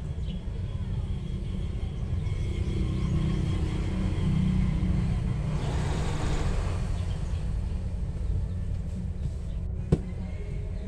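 Electric sewing machine running, a steady low rumble, with one sharp click near the end.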